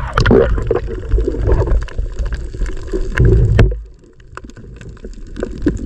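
Seawater splashing and gurgling around an action camera as it goes under the surface during a dive, with bubbles and small clicks on the housing. The churning swells twice, then drops to a quieter underwater wash about four seconds in.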